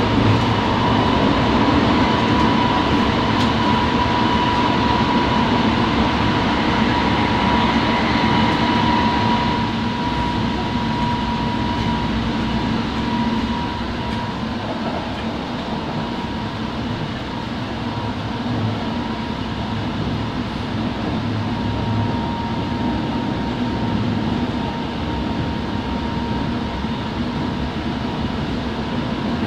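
Kobe Municipal Subway Series 1000 train running at speed, heard from inside the car: a steady rumble of wheels on rail with a constant high tone over it. The noise eases slightly about ten seconds in.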